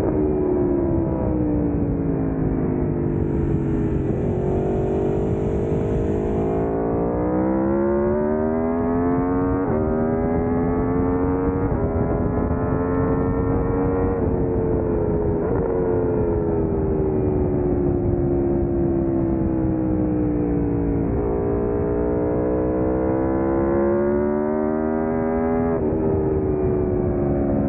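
Aprilia Tuono V4 motorcycle's V4 engine heard onboard at track speed. The revs fall, climb hard and fall again, with sudden steps in pitch at several gear changes.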